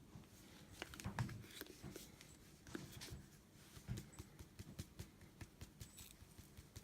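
Faint, scattered small clicks and light rustling of hands handling things.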